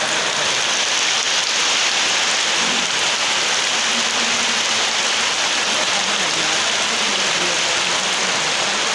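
Heavy rain falling steadily, an even hiss of drops with no pauses or gusts.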